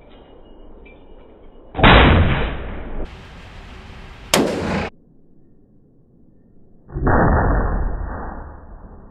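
Three gunshots at a shooting range. Two loud shots, about two seconds in and about seven seconds in, each ring on and die away over a second or two. A sharper, shorter crack comes between them.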